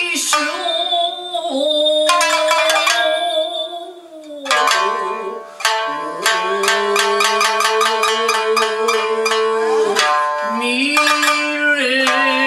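Shamisen plucked in a steady run of notes, under a woman's voice singing long, slightly wavering held notes in nagauta style. The plucking thins out briefly about four seconds in, then picks up again.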